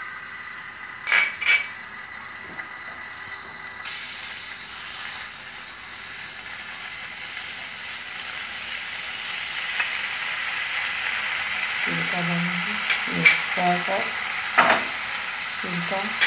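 Butter sauce sizzling and bubbling in a frying pan, the hiss growing steadily louder, while a silicone spatula stirs and scrapes through it. Two sharp knocks come about a second in, and a few more clicks follow later.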